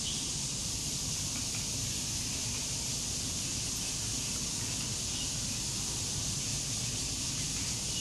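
Steady outdoor background noise: a constant high-pitched hiss over a low rumble, with no distinct events.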